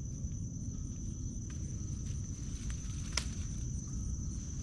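Insects trilling in one steady high-pitched tone, over a low rumble of wind on the microphone. A single sharp snap a little past three seconds in, as a goldenrod stem is broken off by hand.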